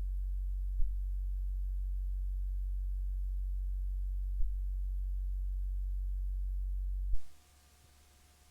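Steady low electrical hum from the tape playback and capture chain, with a click about a second in and another about four and a half seconds in. It ends with a click about seven seconds in, leaving near silence with faint tape hiss.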